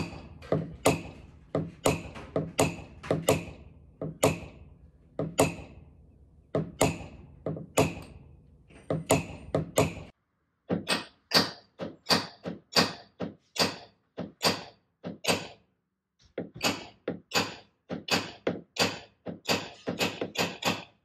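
A hammer repeatedly striking a long tap-down tool, the 'slapper tapper', held against the steel quarter panel of a classic Ford Thunderbird, knocking down the high crown of a wave in paintless dent repair. The strikes are sharp metallic taps, about two a second with short pauses, each ringing briefly.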